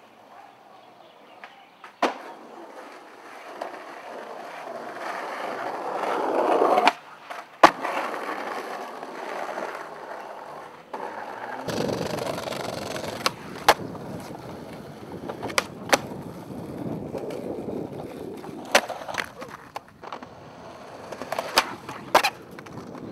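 Skateboard wheels rolling on pavement, with sharp pops and board clacks from tricks and landings, several times; the rolling swells and ends in a loud clack about a third of the way in.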